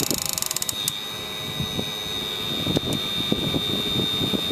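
Hydraulic pump and valves of a radio-controlled hydraulic excavator working under load as it tries to lift a water jug of about 8 pounds. Rapid clicking at first, then a steady high whine from about a second in, with uneven knocks from the machine.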